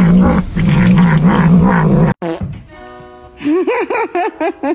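Music with a wavering pitched line for about two seconds, cut off abruptly. Then a brief steady tone, and a quick series of about six short rising-and-falling animal calls near the end.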